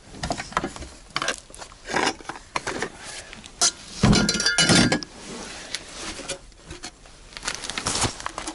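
Sheet-metal heat exchanger and metal pipes clanking and clinking as they are handled and lifted out of a plastic storage box. The loudest clatter, with a ringing metallic tone, comes about four to five seconds in.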